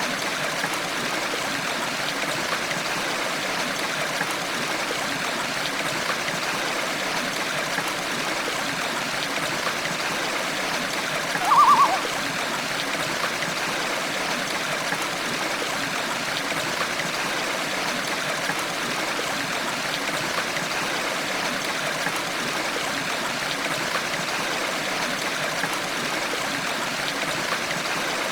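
Steady running water of a stream, an even continuous rush. About halfway through comes one short trilled bird call.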